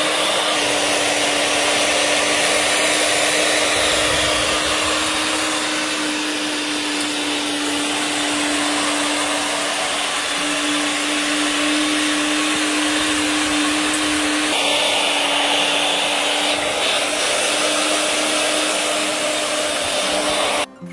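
Stainless-steel swing-type high-speed electric herb grinder running steadily, a loud whirring with a constant hum, grinding dried herbs into powder. The motor cuts off just before the end.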